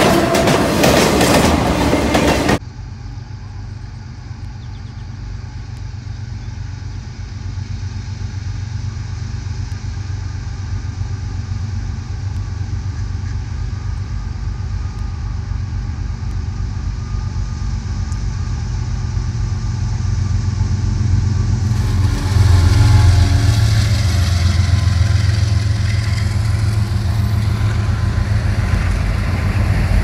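CSX diesel freight locomotives passing close by. After a cut, a diesel locomotive's engine drones steadily and grows slowly louder as it approaches. Near the end, after another cut, freight cars roll past with a louder low rumble.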